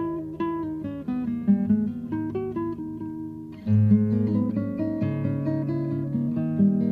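Background music: acoustic guitar picking single notes, turning louder and fuller with strummed chords a little past halfway.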